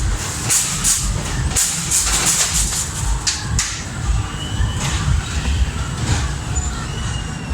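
Ghost train ride car rolling along its track: a steady low rumble with repeated short, hissy clattering noises.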